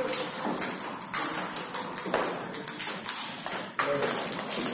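Table tennis rally: the celluloid-type ball clicking sharply off the rubber-faced bats and the table, repeated hits at uneven intervals of roughly half a second.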